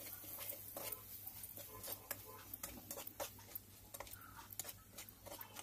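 Faint, irregular clicks and scrapes of a metal spatula against a metal kadai as a thick masala is stirred to keep it from catching on the bottom.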